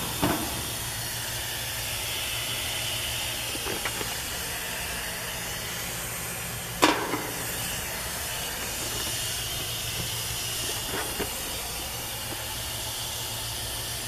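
Nitrogen hissing steadily out of an HVAC system through a loosened hose on the refrigerant charging manifold as the test pressure is bled down, over a low steady hum. A single sharp knock about seven seconds in.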